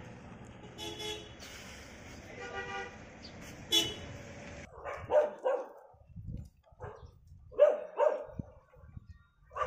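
Short vehicle-horn toots, three of them, over street noise; then, about five seconds in, a dog barks in short barks, several in a row.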